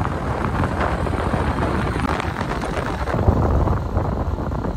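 Wind rushing over the microphone in a moving vehicle, over a steady low road rumble.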